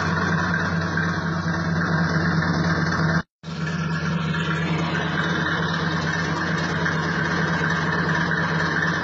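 Heavy vehicle engine running steadily with an even drone. The sound cuts out completely for a moment about three seconds in, then the same drone carries on.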